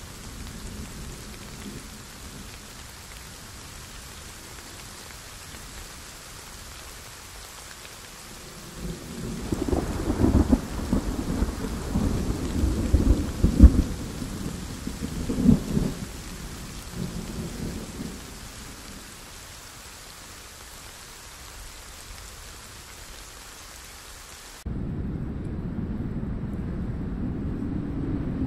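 Steady hiss of heavy rain, with a long rolling rumble of thunder from about a third of the way in that swells to several loud peaks and then dies away. Near the end the sound cuts abruptly to a steadier, louder low rumble without the rain hiss.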